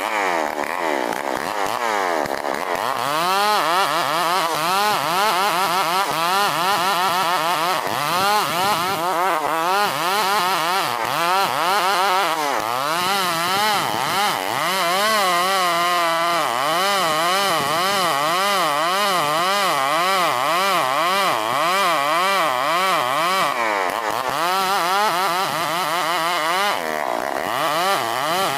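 Stihl 070 two-stroke chainsaw running at full throttle while ripping a dense ulin ironwood log lengthwise, its engine pitch wavering up and down over and over as the chain bogs and recovers in the cut.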